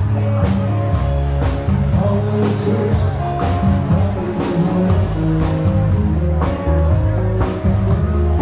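Background music: a rock song with guitar and a steady beat.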